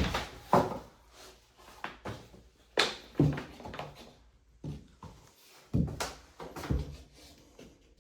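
Irregular knocks and clunks of hard objects, about a dozen at uneven spacing, with a short lull about four and a half seconds in.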